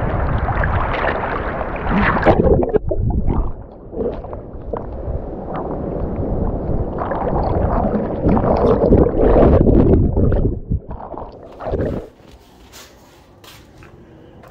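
Seawater sloshing, splashing and gurgling around a camera held at the surface by a swimmer, loud and irregular. About twelve seconds in it cuts off to a much quieter room background with a few faint clicks.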